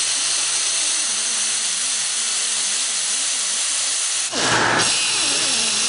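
Disc grinder running steadily as it grinds a tattoo off skin. About four and a half seconds in there is a brief, louder rush.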